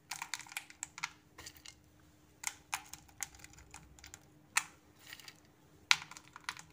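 Crushed almond pieces being sprinkled and pressed by hand into a buttered metal cake pan: light, irregular clicks and taps.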